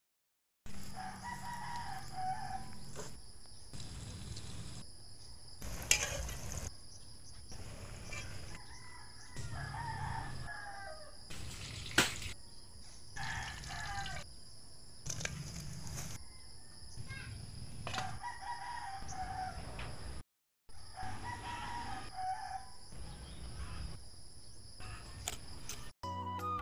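Roosters crowing again and again, each crow about a second long, over a steady high-pitched hum. Two sharp clicks stand out, about six and twelve seconds in.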